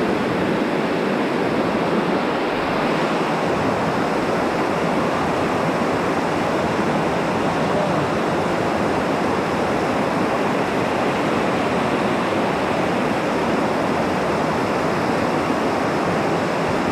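Waterfall: a steady rush of falling water, with no break or change.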